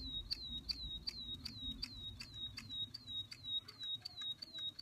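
Electronic toy bird singing: a short electronic tweet that swoops down and levels off, repeated evenly about three times a second, with light clicks in between.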